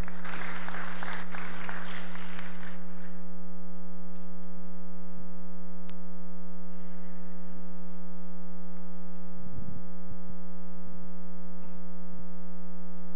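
Applause dying away over the first three seconds, over a loud, steady electrical mains hum with many overtones that then carries on alone.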